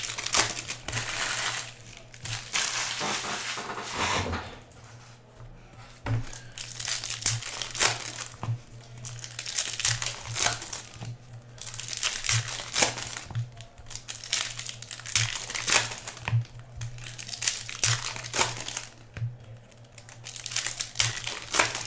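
Hockey card packs being torn open, their foil wrappers crinkling and rustling in irregular crackly bursts, over a steady low hum.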